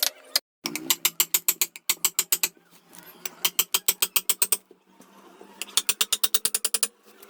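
Rapid, evenly spaced sharp clicks, about eight a second, in four runs with short pauses between them.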